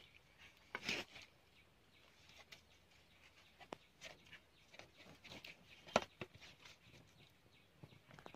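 Small wood fire crackling, with scattered small pops and clicks and one sharper snap about six seconds in.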